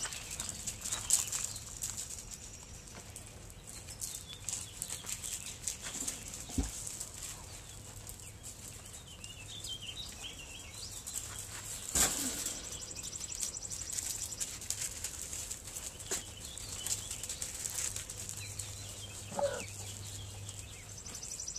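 Puppies moving about and playing on gravel: scattered crunches and clicks of paws and toys on the stones, with a sharper knock about twelve seconds in.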